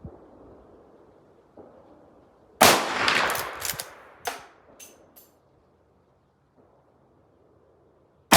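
Rossi R92 lever-action rifle firing a .357 Magnum 158 grain round, a sharp shot about two and a half seconds in that echoes for over a second. A few quick metallic clicks follow as the lever is worked, and a second shot comes at the very end.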